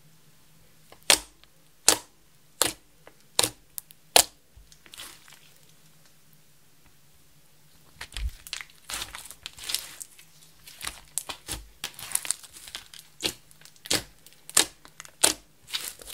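Thick red slime, clear slime with makeup and glitter mixed in, being handled: about five sharp pops a little under a second apart in the first few seconds, then from about halfway a busy run of crackling pops and clicks as it is stretched, folded and pressed with the fingers.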